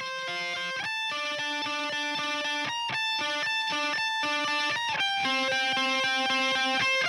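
Instrumental rock passage: an electric guitar picks a repeating figure of single notes, several a second, growing steadily louder.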